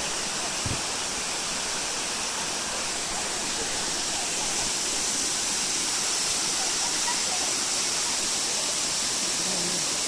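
Small waterfall cascading over rocks into a pool, a steady rushing of water.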